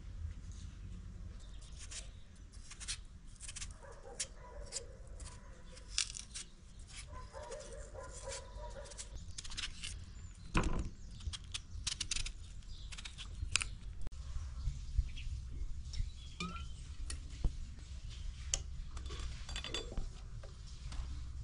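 Raw potatoes being peeled and sliced with a kitchen knife and the pieces laid into a pot: a run of small clicks and scrapes, with one louder knock about ten seconds in.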